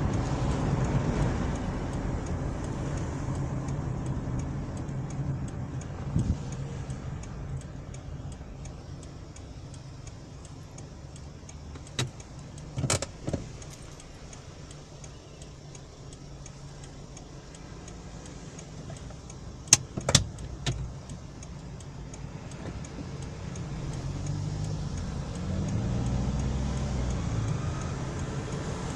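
Car cabin noise: engine and road rumble fades as the car slows to a stop in traffic and idles quietly. Near the end, engine noise rises as it pulls away. A few sharp clicks come about halfway through.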